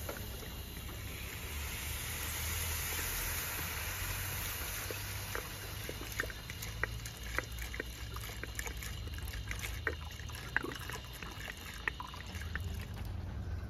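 Water pouring from a jug into a metal pot of dried beans and lentils, a steady splashing stream. The stream is fullest in the first few seconds, then thins, with scattered drips and small ticks.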